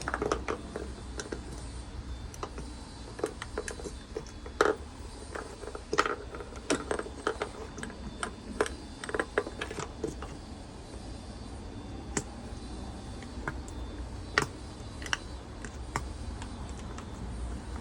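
Irregular sharp clicks and taps, like small hard objects being handled, over a steady low rumble.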